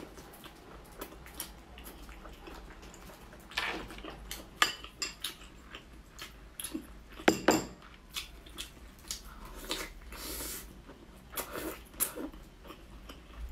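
Close-up eating sounds: wet chewing and lip-smacking on braised pork eaten by hand, with scattered small clicks and one sharper click about seven seconds in.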